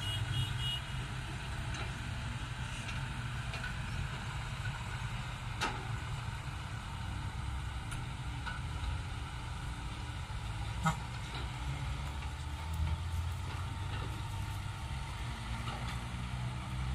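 Diesel engines of six-wheel dump trucks running as they drive past: a steady low rumble, with two short sharp knocks, about six and about eleven seconds in.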